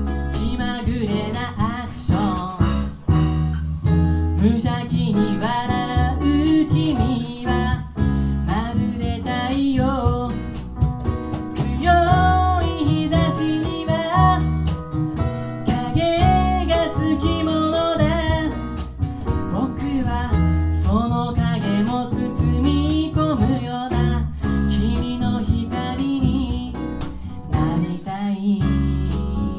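Live acoustic band: a male singer singing over a strummed Gibson J-45 acoustic guitar, backed by a Yamaha digital piano, cajon and bass.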